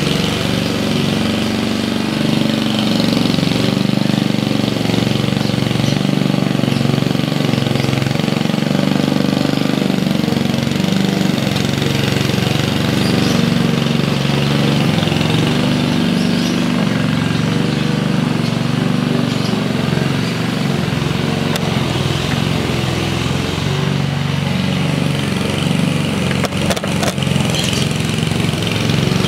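Walk-behind petrol rotary lawn mower running steadily while it is pushed across the grass cutting it, with a few brief clicks near the end.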